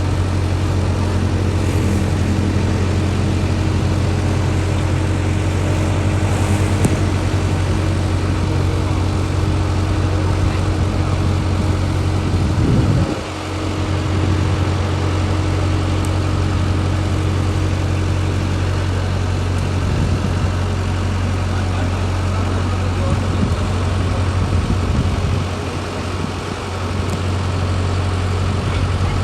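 Mini excavator's diesel engine running steadily under a low hum, its note dipping briefly about 13 seconds in and again near the end.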